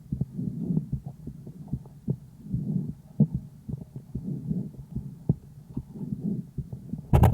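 Calf's lung and heart sounds heard through a homemade stethoscope microphone pressed to the chest: low breath sounds swelling and fading in a quick steady cycle, with sharp heartbeat clicks between them. Just before the end a sudden louder scraping, knocking noise takes over.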